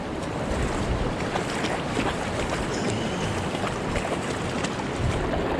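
Steady ocean surf and wind buffeting the microphone, a continuous rushing noise with no distinct events.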